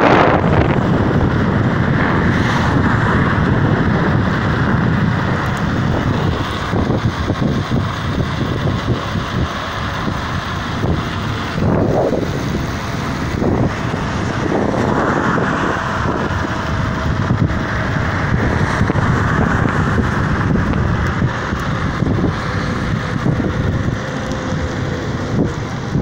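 Wind buffeting the microphone on a bicycle coasting at speed without pedalling on asphalt, a steady rushing noise, with road traffic passing alongside.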